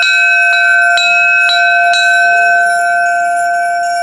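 A ship's bell and an altar bell rung together. Repeated strikes come about two a second for the first two seconds, then the ringing carries on and slowly fades.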